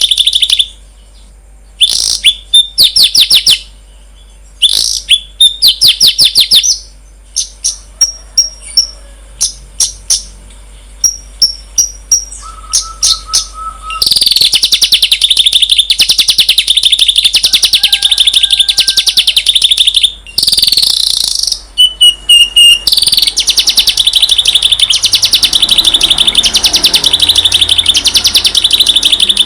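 A songbird singing loudly: at first short bursts of fast, high, repeated notes with gaps between them, then from about halfway a long, nearly unbroken rapid trilled chatter that swells and fades in regular pulses.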